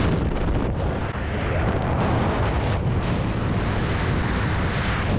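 Heavy free-fall wind rushing and buffeting over an action camera's microphone in a skydive: a loud, steady roar, strongest in the low end.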